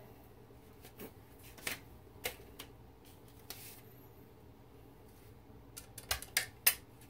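Handling noise from a thin aluminium radio chassis cover plate being picked up and moved about: scattered light clicks and rustles, then a quick run of sharper metallic clicks and knocks near the end.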